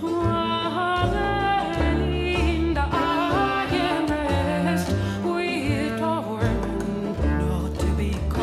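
A woman singing a slow melody with vibrato, accompanied by a small chamber ensemble with sustained low bowed-string notes beneath her.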